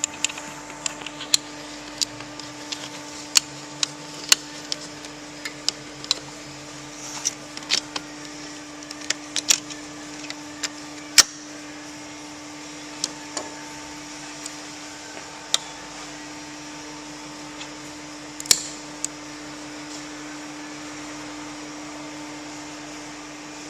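Irregular sharp clicks and light knocks of hand tools and parts being handled, several a second at first and then only now and then, over a steady low electrical hum.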